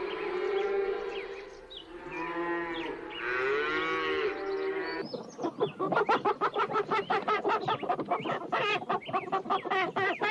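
Cattle mooing in long drawn calls, with small birds chirping over them. About five seconds in it cuts to a flock of poultry calling rapidly over one another.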